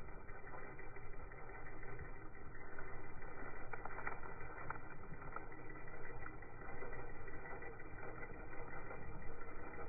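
RC rock crawler with a brushed 550 35-turn motor, crawling slowly: a steady whir of motor and gears, with scattered crackles of dry leaves under the tyres, most about four seconds in.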